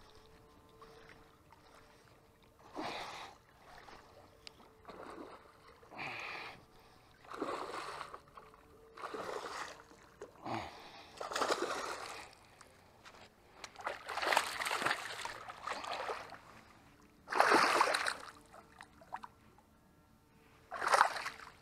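Water splashing in repeated bursts, growing louder toward the end, as a hooked bass thrashes at the surface while being played in and landed in the shallows.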